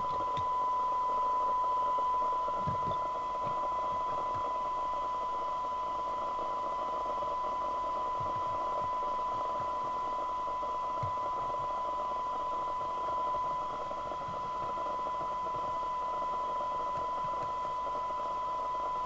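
Mustang 3000 FM CB radio's speaker giving a steady test tone with a hiss behind it, as the receiver picks up the signal generator during alignment. The IF transformer coil being tuned has a broken core.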